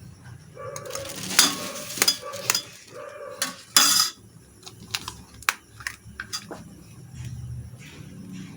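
Dishes and metal utensils knocking, clinking and scraping against each other in a run of sharp knocks, loudest and busiest in the first half, then a few lighter clicks.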